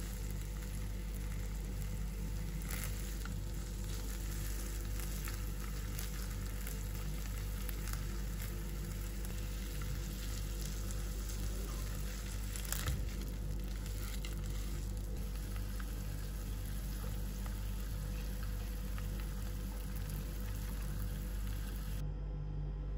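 Salmon fillets sizzling steadily as they fry in oil in a non-stick frying pan, with a few light clicks and one sharper knock about halfway through. The sizzle drops away suddenly near the end.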